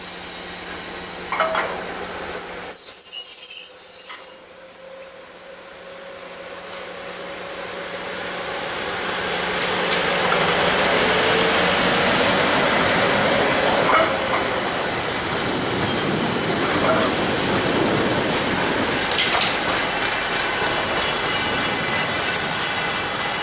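GB Railfreight class 73 locomotive and its rake of rail-head treatment water tank wagons passing: a rolling rush of wheels on rail that builds over several seconds and then holds steady, with a few clicks as the wheels cross rail joints. About three seconds in there is a loud, brief burst of noise with a high whistling tone.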